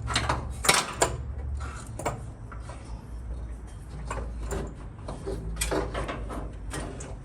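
Irregular knocks and clatters of parts and tools being moved about and set down, over a low steady hum.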